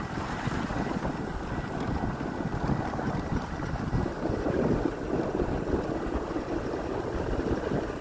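Wind buffeting the microphone of a moving vehicle on the road, a dense, steady low rumble mixed with road noise.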